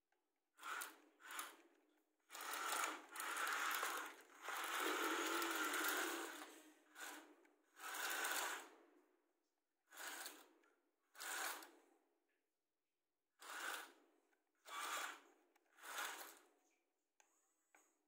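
Toy excavator's small electric gear motors whirring in start-stop bursts as the boom and bucket move. There are about ten short runs and one longer stretch of roughly four seconds starting about two seconds in.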